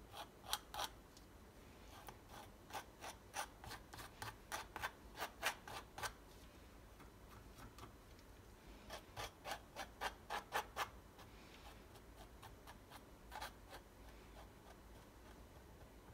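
Faint scraping of a palette knife spreading thick acrylic paint across canvas, in runs of short quick strokes about three a second, with pauses between the runs.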